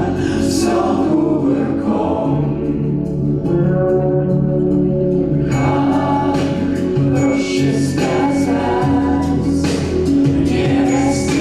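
Music: a song passage with singing voices over sustained chords, with cymbal-like washes recurring every second or two.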